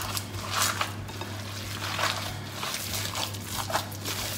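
Wet squelching of minced beef and pork mixture being kneaded and squeezed by a gloved hand in a glass bowl, an irregular squish about every second, over a steady low hum.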